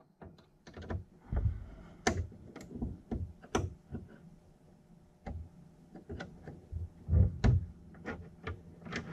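Irregular small metallic clicks and knocks of a 3 mm Allen wrench turning out the bolts that hold an exhaust fan to a 3D printer's frame.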